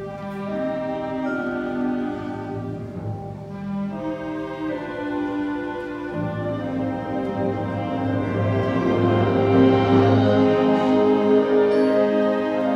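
Concert band of woodwinds and brass playing held chords over a low brass line, swelling louder about two-thirds of the way through.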